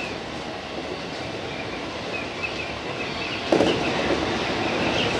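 JR East 205 series electric train running, heard from the driver's cab: a steady rolling rumble with a faint wavering high squeal from the wheels on the rails. The sound suddenly gets louder about three and a half seconds in and stays louder.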